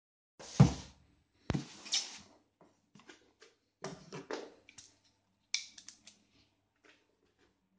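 A cardboard camera box being handled and opened. Two thumps about half a second and a second and a half in, a scraping rub just after, then a scatter of light taps, clicks and rustles.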